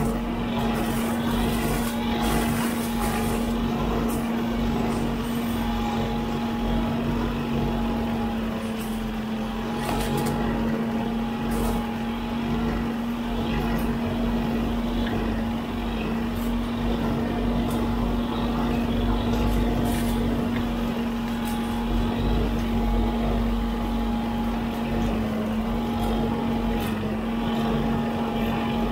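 Huddig 960C6 backhoe loader running with a hydraulic brush cutter on its arm, the cutter spinning as it mows roadside grass and brush: a steady drone with one strong low hum, a fainter higher whine that comes and goes, and scattered sharp clicks.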